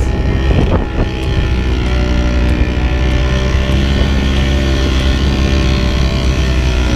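Classic Vespa scooter's two-stroke engine running steadily under way.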